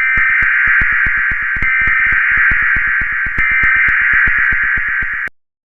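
Emergency Alert System digital header tones: a continuous electronic data warble with a fast, even ticking running through it. It starts abruptly and cuts off after about five seconds.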